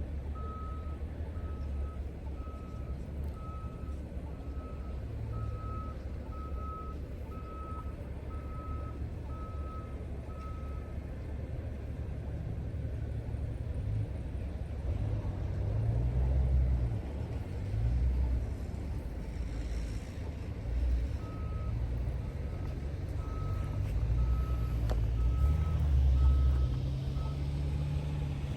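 A vehicle's back-up alarm beeping at a steady pace, a little more than one beep a second, over a low engine rumble. The beeping stops partway through for about ten seconds, then starts again while the rumble grows louder.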